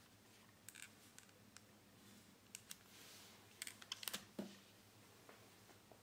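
Faint handling of an Alcatel OT-C630X plastic clamshell phone: scattered small clicks and rubbing, then a quick cluster of clicks and a soft snap about four seconds in as the flip is opened.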